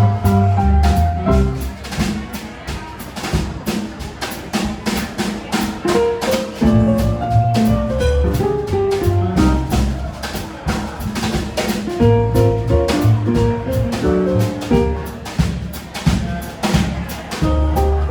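Jazz piano trio playing live: piano, bass and drum kit in a swinging jazz standard, with steady cymbal strokes prominent over the piano line and walking bass.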